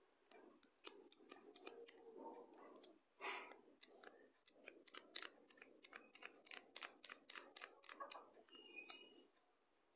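Plastic clicking of a pen-style mechanical eraser holder being worked by hand: many sharp clicks, irregular and in quicker runs midway, over a faint handling rustle. The holder's lock mechanism is not catching.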